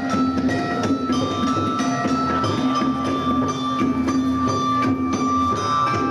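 Live instrumental music: a homemade stringed instrument holds long droning notes and plays shifting melody notes, over a steady hand-drum beat.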